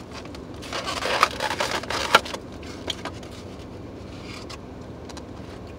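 Takeout food packaging being handled: rustling with a few sharp clicks for about a second and a half, then a low steady hum.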